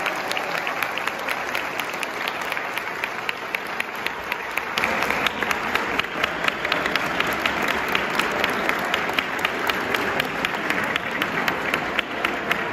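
Audience applauding, a dense patter of many hands clapping that swells about five seconds in.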